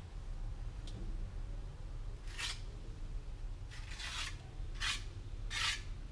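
Steel trowel scraping and scooping wet cement in a plastic bucket: four short gritty scrapes about a second apart in the second half.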